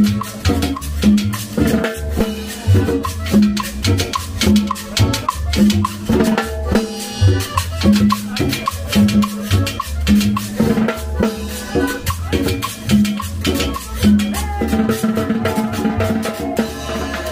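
Latin dance music played by a combo band, with drum kit and percussion keeping a steady beat over a repeating bass line.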